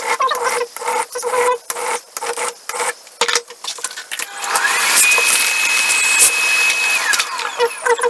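A hand file rasps on metal clamped in a vise in quick back-and-forth strokes, two or three a second. About four and a half seconds in, a small power tool's motor spins up with a rising whine, runs steadily for about two seconds and winds down near the end; this is the loudest sound.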